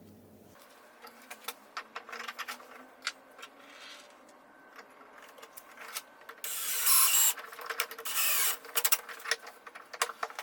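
Workshop hand-tool work: scattered clicks and light knocks, then two loud scraping strokes of under a second each, about six and a half and eight seconds in.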